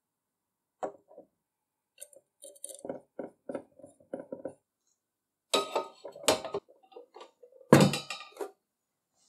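Assembly of a restored antique kitchen scale, with the clinks and clicks of small metal parts. A single clink comes about a second in. Then comes a run of light quick clicks as a screwdriver drives the screw into the blue base plate. Louder clattering follows, and the loudest knock comes near the end.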